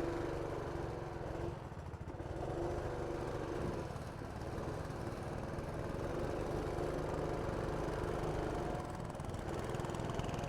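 Go-kart engine running steadily as the kart drives, its pitch dipping briefly a couple of times.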